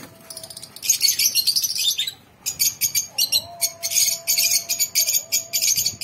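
A colony of lovebirds chattering: rapid, shrill, high-pitched chirps in dense bursts, with a brief lull about two seconds in.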